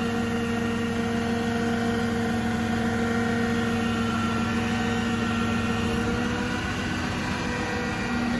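Diesel engine of an Altec boom crane truck running steadily, a constant droning hum that rises slightly in pitch about six seconds in.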